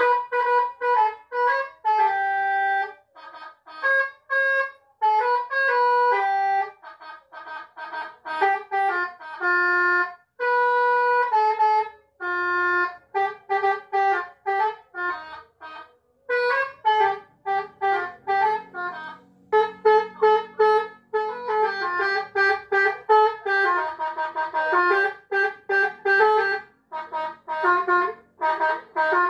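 Electronic 'basuri' melody horn sounding through a pair of horn loudspeakers. It plays a tune of short notes that change pitch quickly, with brief breaks between phrases.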